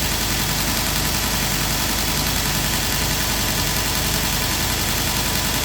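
Grizzly 2x42 belt grinder running steadily, its motor humming under a constant hiss from the belt.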